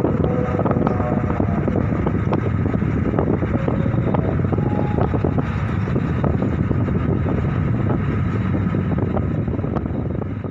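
Steady low rumble of a ferry's engines during docking, with wind noise on the microphone and scattered faint clanks.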